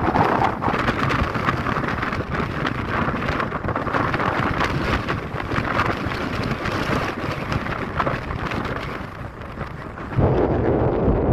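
Gusting wind blowing across the microphone as a steady rushing hiss, easing slightly and then hit by a stronger, deeper gust about ten seconds in.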